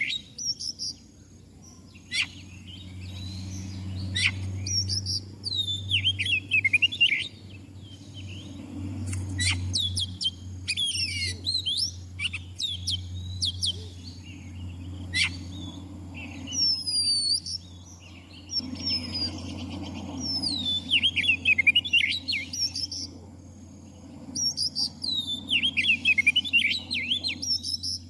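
Oriental magpie-robin (kacer) singing: bursts of rapid, varied whistled phrases with quick falling notes, coming in clusters every few seconds. A steady low hum runs underneath.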